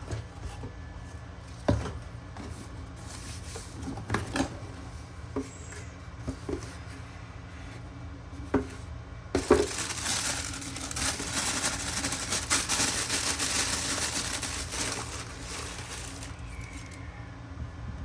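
Unboxing handling noises: a few light knocks and taps, then several seconds of steady rustling, as of paper packaging being handled.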